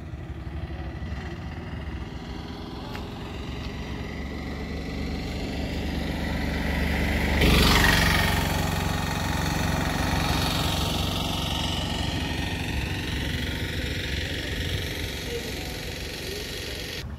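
Auto-rickshaw engine coming closer and passing close by. It is loudest about eight seconds in, then fades slowly as it drives away.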